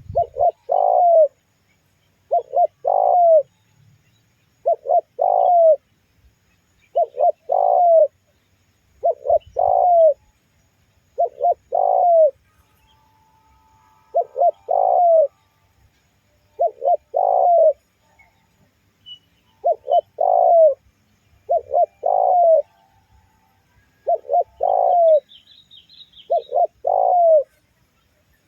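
Spotted dove (tekukur) cooing over and over, about one phrase every two seconds; each phrase is a few short coos ending in a longer falling note.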